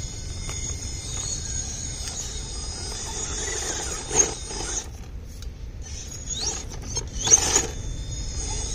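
Small electric RC rock crawler's motor and gear drive whining as it creeps over rock, a high steady whine that cuts out briefly a little past halfway. Two short louder surges, one a little before halfway and one near the end.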